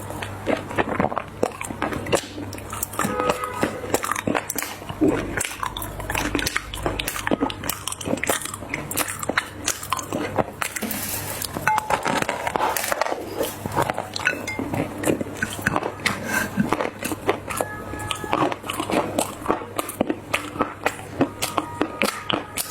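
Soft dried clay being crushed and crumbled by hand: a dense, unbroken run of crisp crunches and crackles.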